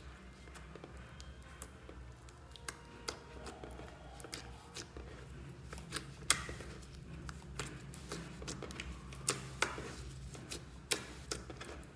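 Glitter slime being kneaded, poked and stretched by hand, giving irregular sticky clicks and small pops as it pulls apart and trapped air breaks through. The loudest pops come about six seconds in and near the end.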